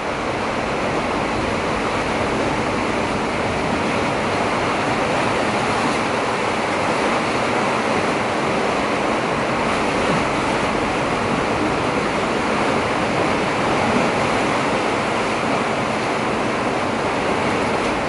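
Rough ocean surf breaking over the reef and rocks of a rocky shore, a steady rush of waves that swells slightly now and then.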